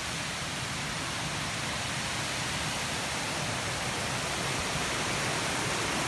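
Steady rush of a waterfall cascading into a pool, slowly growing louder.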